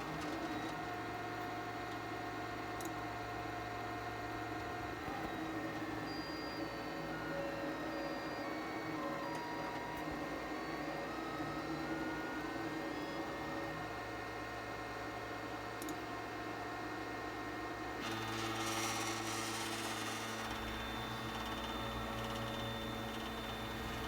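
Stepper motors of an FLSun delta 3D printer whining as the carriages move, their pitch stepping up and down with each move over a steady hum. About three quarters of the way through, a hiss and a lower steady tone join in.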